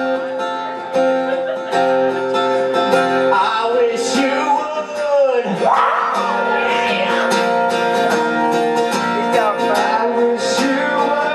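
Acoustic guitar strummed, with a voice singing along.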